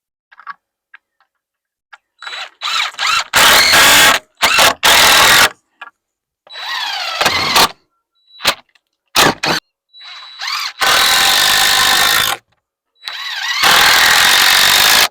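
Cordless drill driving screws into wood framing: several bursts of the motor, each spinning up in a rising whine and stopping, the longest about a second and a half, with short blips of the trigger between.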